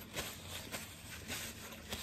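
Paper napkin rubbed between the hands, soft rustling scuffs about every half second.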